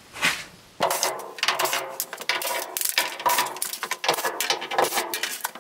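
Cordless drill-driver backing screws out of a bus's metal window frame. Starting about a second in, the motor runs in bursts among metallic rattling and clinking.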